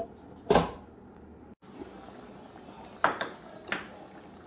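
Kitchen clatter of pots and dishes: one loud knock about half a second in, then two lighter clinks a few seconds later.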